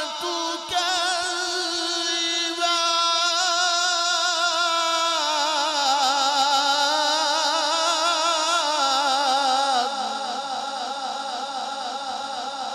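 A male qari's amplified voice in melodic Quran recitation (tilawat), holding long drawn-out notes with a fast vibrato that step down in pitch several times.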